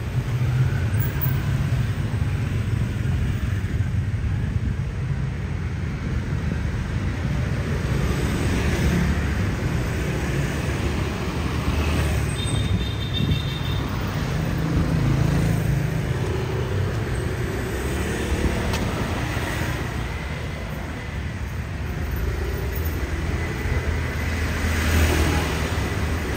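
Street traffic of motor scooters and small vehicles passing close by, engines running, swelling louder several times as each one goes past.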